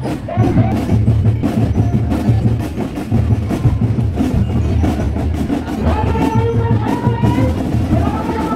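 Marching drum and lyre band playing a steady drum beat. Higher pitched held notes join about six seconds in.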